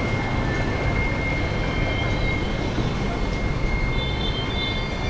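Steady noise of aerated live-seafood tanks, with water churning and pumps running, and a thin steady high whine over it.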